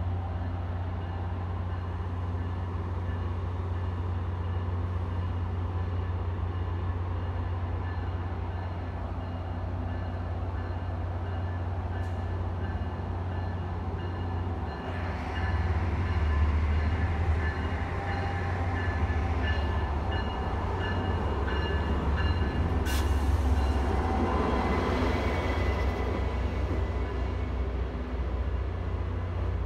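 MBTA commuter rail train pulling into a station platform over a steady low rumble; the rolling noise swells from about halfway in, with a sharp clank and a faint high squeal of wheels on rail as the coaches draw alongside.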